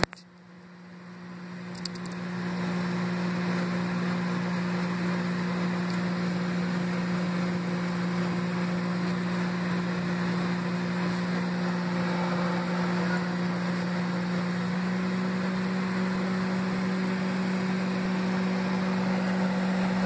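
Panasonic inverter microwave oven running: a steady electrical hum with fan noise, its tone shifting slightly about fifteen seconds in.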